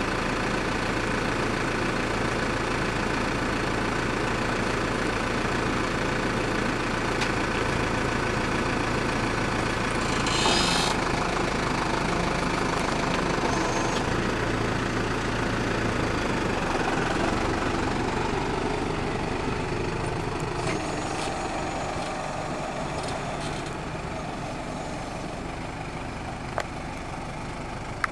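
Tractor diesel engine running steadily under a homemade hydraulic crane as it lifts a jumbo bag, with a brief hiss about ten seconds in; the engine grows gradually fainter over the last several seconds.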